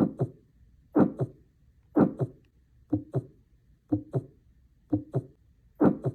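Recorded heartbeat with a heart murmur: lub-dub pairs about once a second, each beat trailed by a whooshing, blowing murmur caused by turbulent blood flow across a heart valve.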